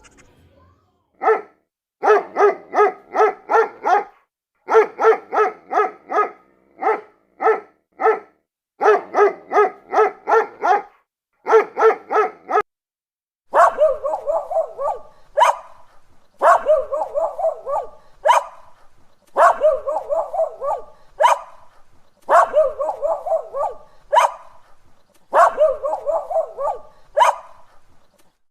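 A dog barking rapidly, several barks a second, in runs of a second or two with short pauses between. About halfway the barking changes to a higher-sounding series of runs, each starting with a sharp click and repeating about every three seconds.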